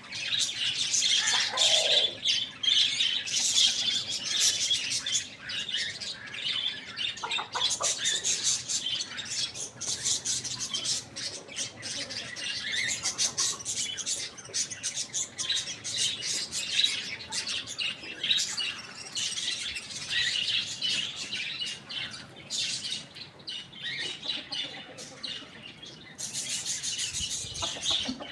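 A flock of small birds chirping and chattering continuously, with squawks mixed in and a short falling call about two seconds in.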